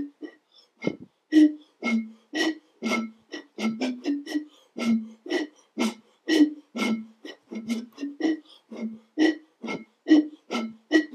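Root beer bottles played as musical instruments in a polka: a quick run of short separate notes, about three a second, with each note starting sharply. A low note alternates with one about a fifth higher, oom-pah fashion.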